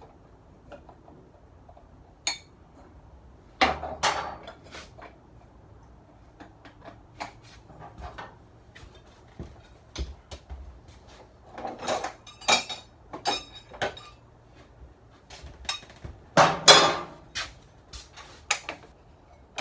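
Metal hand tools clinking and clattering: a flywheel holder and a starter ratchet-clutch removal tool being handled at a small Briggs & Stratton engine. Scattered sharp knocks, with louder clusters about 4 s in, around 12 s and around 17 s.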